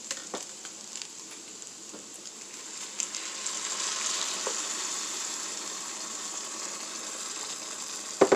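Blended tomato and chipotle sauce poured into a hot pot of pork pieces, sizzling and bubbling on contact; the sizzle grows louder about three seconds in and holds steady. A couple of sharp knocks near the end.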